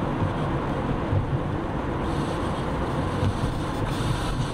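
Steady road and engine noise of a moving car, heard from inside the cabin while it drives through a road tunnel.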